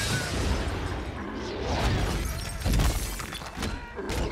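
Film fight sound effects: glass shattering and debris crashing, over heavy low thuds of impacts. The loudest hit comes near three seconds in.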